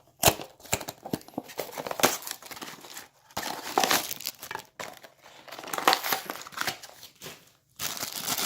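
A small cardboard blind box being torn open and the plastic bag inside crinkled and ripped: irregular crinkling and tearing with sharp snaps, coming in clusters broken by brief pauses.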